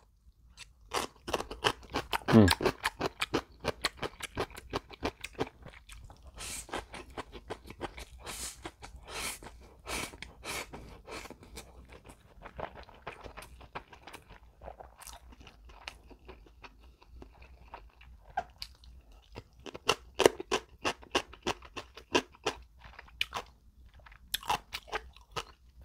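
Close-up crunching and chewing of crisp yellow pickled radish (danmuji), in sharp irregular crunches. A brief falling vocal sound comes about two seconds in.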